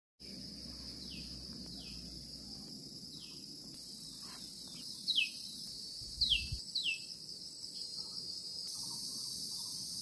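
Steady, high-pitched chorus of forest insects, with a bird giving short falling chirps several times over it. The insect chorus grows louder in steps, loudest near the end.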